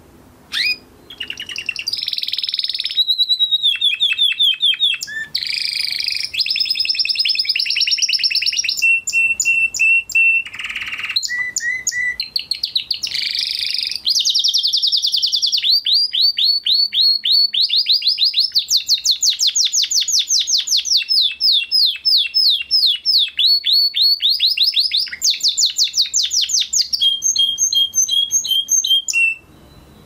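Canary singing a long, nearly unbroken song of fast trills and rolls, one run of rapidly repeated notes after another, with a few brief held whistles in between. The song starts about a second in and stops just before the end.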